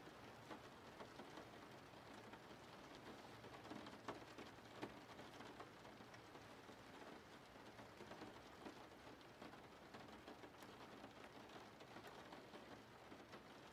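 Faint steady rain falling, with scattered light taps of drops.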